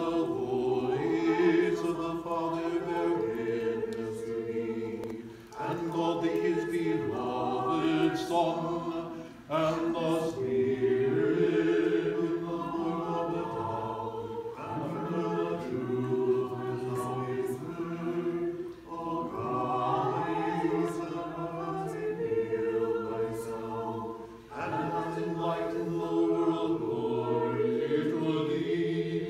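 A cappella choir singing Orthodox liturgical chant in harmony, in long sustained phrases with brief breaks between them.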